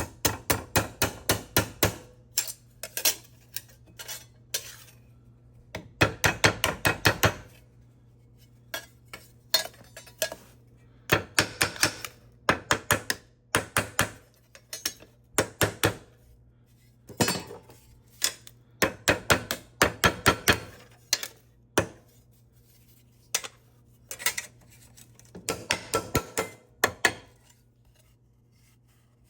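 Runs of light metal-on-metal tapping and clinking, several sharp strikes a second for a second or two at a time with short pauses between, typical of work on small pressed-steel toy parts.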